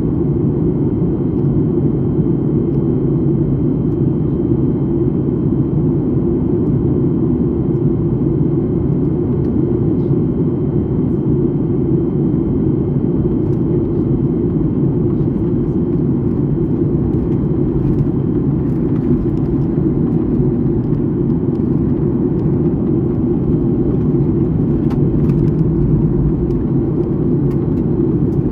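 Steady cabin drone of a jet airliner in flight: engine and airflow noise, low and unchanging, with a few faint small clicks.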